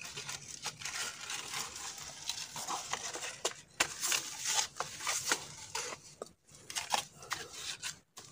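Hands working in wet mud and grass and handling a bamboo tube trap: an irregular run of short scrapes, crackles and rustles.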